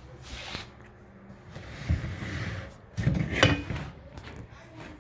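Handling noises of something hard being moved about: a scrape about two seconds in, then a louder rattling scrape about three seconds in.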